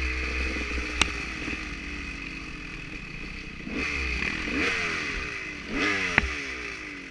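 Dirt bike engine running at a steady note, then revved in repeated rising bursts that fall back from about halfway. There are sharp knocks about a second in and near the end.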